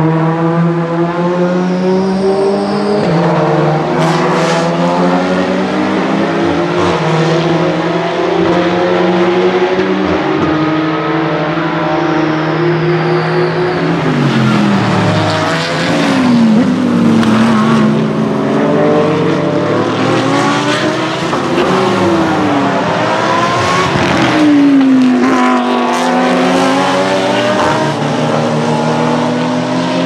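Several race cars' engines, touring cars and GT3 cars, running hard and overlapping as they pass one after another. Their pitch falls as they lift and downshift for a corner, then rises again as they accelerate up through the gears.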